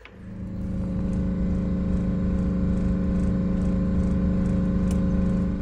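Bus engine starting and then running steadily, held slightly above idle, turning the air compressor as it builds air from an empty system.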